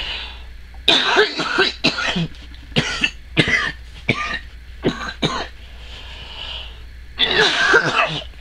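A person coughing in a fit: about nine short, sharp coughs over several seconds, then a longer, harder bout of coughing near the end.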